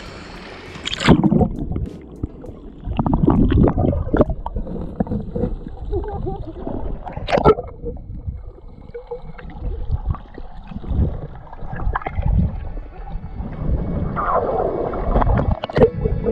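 Muffled water sloshing, gurgling and knocking heard through a camera held underwater while snorkeling, after a splash about a second in.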